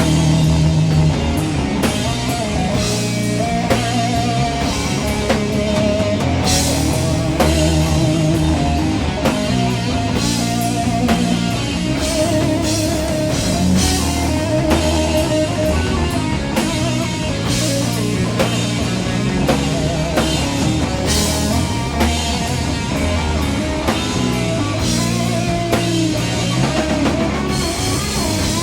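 Doom metal band playing an instrumental passage: heavy distorted electric guitars, bass and a drum kit at a slow, steady pace. A lead guitar line of held, wavering notes runs over the top.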